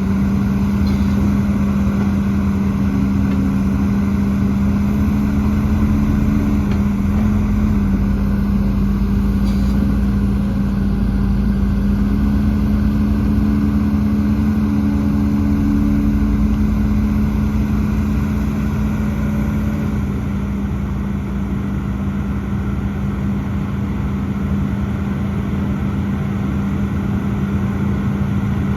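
Heavy diesel earthmoving machine engine running steadily at a constant pitch under a continuous low hum, easing off slightly about two-thirds of the way through.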